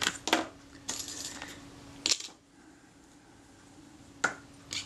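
Light metallic clicks and clinks of small camera shutter parts being handled and set in place on the mechanism plate, several in the first two seconds and a couple more near the end, with a quieter stretch between.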